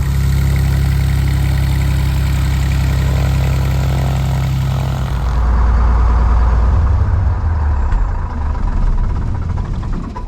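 1959 Cessna 172's Continental O-300 six-cylinder engine idling steadily after a fresh start, being held at a low idle of about 600 rpm. About halfway through, the engine note shifts lower.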